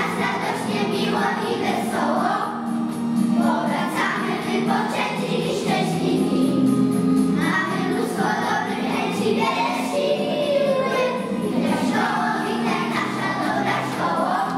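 A group of young children singing a song together in unison over a recorded musical backing track.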